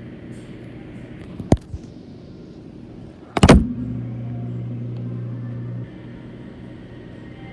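Maytag washing machine running, its motor humming steadily and cutting in and out. A sharp knock comes about a second and a half in and a loud bang about three and a half seconds in.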